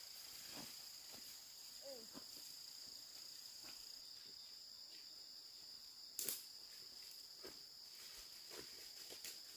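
Faint, steady chirring of insects in two unbroken high tones, with scattered light knocks and clicks, the sharpest about six seconds in.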